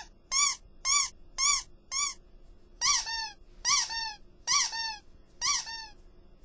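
Squeaky cartoon sound effects for small bouncing animated creatures: a run of about eight short, high squeaks, each rising then falling in pitch, roughly two a second, with a short pause a little over two seconds in.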